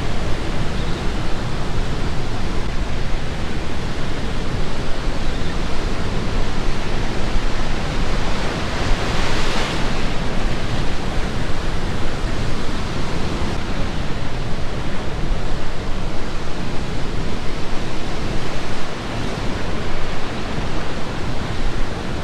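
Steady, loud wind rumble on the microphone mixed with the wash of surf, with a slight swell about nine to ten seconds in.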